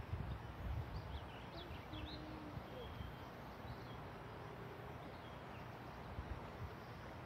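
Outdoor background: a steady hiss with low wind rumble on the microphone, strongest in the first second, and a few faint bird chirps about a second in.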